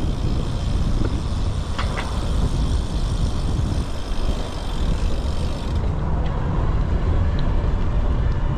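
Wind buffeting a body-worn camera's microphone while cycling, a steady fluctuating rumble, with a couple of faint ticks about two seconds in.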